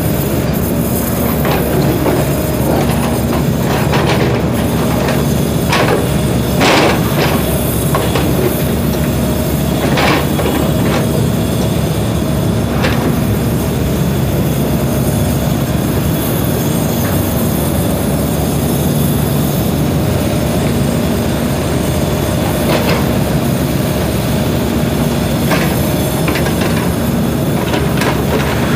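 SANY small crawler excavator's diesel engine running steadily under load as the machine digs and swings, with short sharp metallic knocks and squeaks from the boom, bucket and tracks several times.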